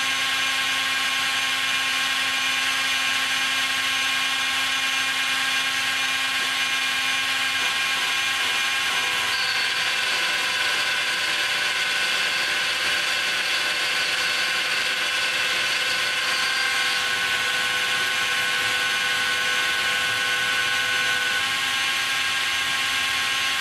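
A Makita die grinder serving as the spindle of a home-made CNC mill, running steadily while its end mill cuts aluminium: a high motor whine over cutting noise. A few higher tones come and go partway through as the machine moves.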